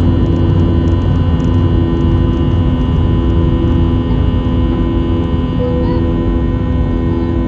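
IAE V2500 turbofan of an Airbus A321 running, a steady roar with several steady tones over it.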